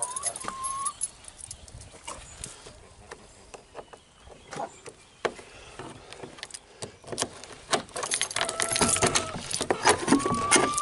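Key working a padlock and the padlock being unhooked from a steel hasp on a wooden shed door: a run of small metal clicks and rattles that get busier and louder in the last few seconds. A long, steady squeak sounds near the end.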